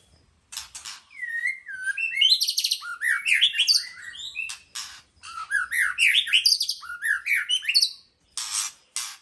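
White-rumped shama singing: a fast, varied run of rising and sweeping whistled notes, with short harsh rasping notes near the start and again near the end.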